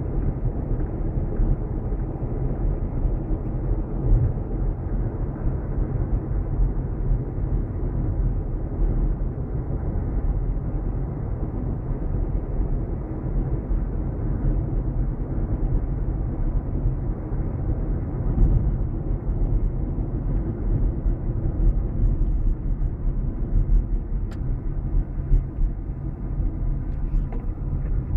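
Steady low rumble of a car driving on a paved highway, heard from inside the cabin: tyre, road and engine noise.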